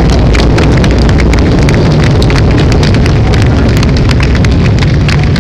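Loud pyrotechnic explosions with dense fireworks crackling over a steady deep rumble.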